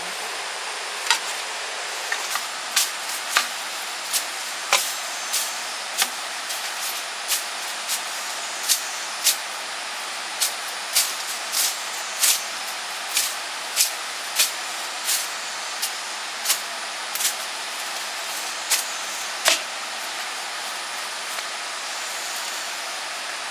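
A digging tool chopping into soil while a drainage ditch is dug by hand: sharp strikes about one every two-thirds of a second, stopping a few seconds before the end. Under them, a steady rushing hiss of flowing water.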